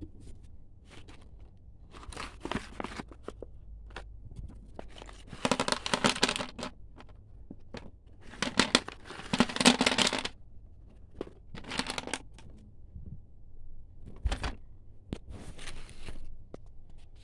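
Plastic snack packet being crinkled and torn open, in about six separate bursts of rustling, the loudest about nine to ten seconds in.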